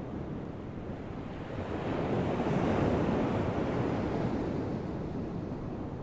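Atlantic surf breaking on a sandy beach: a wave crashes and rushes in, swelling to a peak about halfway through and then washing back down into the steady rumble of the surf.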